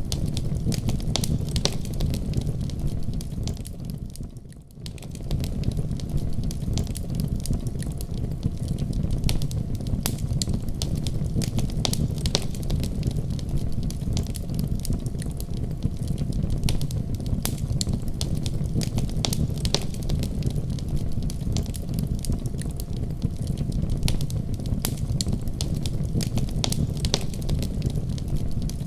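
Wood fire crackling in a fireplace: many sharp, irregular pops and snaps over a steady low rumble of the flames. The sound dips briefly and comes back about four seconds in.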